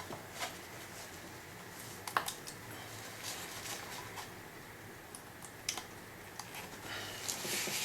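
Scattered light clicks, taps and short scrapes of small hand tools against the plastic and metal of an automotive ECU being disassembled. A sharper click comes about two seconds in, and a cluster of scraping comes near the end.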